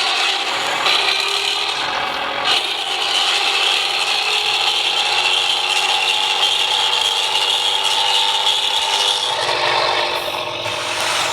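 Hino diesel engine running with a raspy, snoring 'ngorok' note, steady and rough throughout, its pitch drifting slightly lower and shifting near the end.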